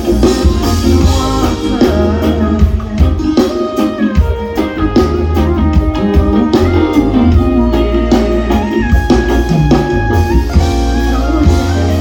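Live reggae-pop band playing through a festival PA, with electric guitar, drum kit and a heavy, steady bass line.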